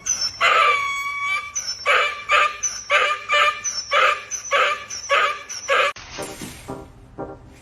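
A dog giving a quick run of about ten short, high-pitched calls, about two a second, that stop abruptly about six seconds in.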